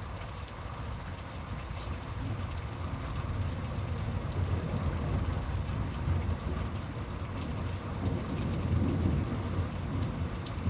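Steady rain falling, with a low rumble of thunder that builds from about four seconds in and swells again near the end.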